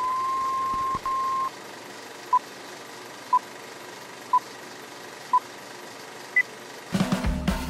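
Film-leader countdown sound effect: a steady high test tone, briefly broken about a second in, stops at about a second and a half; then short beeps at the same pitch once a second, four of them, and a final higher-pitched beep, over a faint steady hiss. Music starts near the end.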